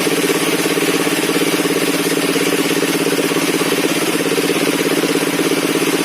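Engine of a circular-saw sawmill running steadily with a fast, even pulsing.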